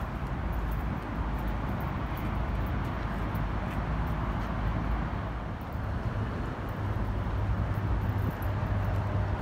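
Steady rumble of city road traffic, growing somewhat louder and deeper about six seconds in.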